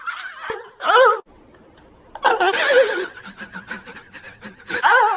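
People laughing in short bursts, with wavering, sing-song voices.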